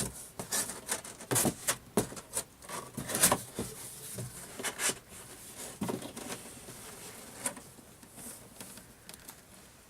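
Cardboard monitor box being handled: its flaps closed and the box shifted, giving irregular scrapes, rustles and light knocks that thin out after about six seconds.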